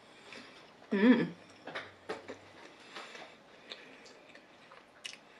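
Close-up chewing of a bite of Cornish pasty: soft, scattered mouth clicks and smacks, with one short hummed voice sound about a second in.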